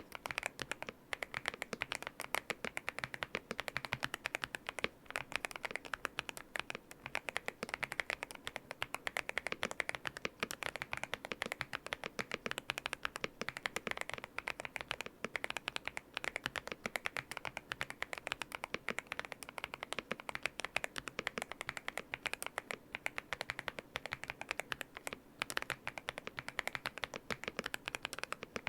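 Aula F108 Pro mechanical keyboard with lubed WS Brown switches being typed on quickly and without pause: a dense, even stream of keystrokes. The board is damped with foam, a three-layer tape mod and polyfill for a thocky sound.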